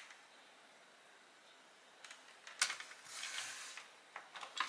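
Handling noises from small repair work: quiet at first, then a few light clicks, one sharp click, a brief scraping rustle under a second long, and more clicks near the end.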